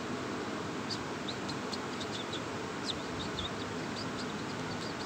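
A quick series of short, high chirps from a small bird, starting about a second in, over a steady background hiss.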